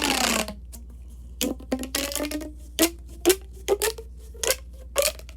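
Plastic pop tubes being stretched and squeezed: a longer ribbed, falling-pitched stretch at the start, then a series of short sharp pops.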